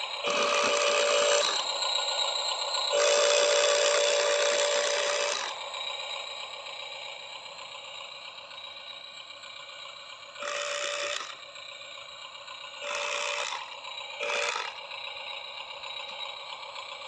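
Small electric gear motors of radio-controlled model construction machines whining steadily, with five louder bursts of higher-strain motor whine as functions are worked.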